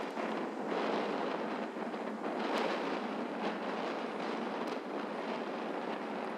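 Wind rushing over the microphone: a steady, noisy rush with small swells and a few faint ticks.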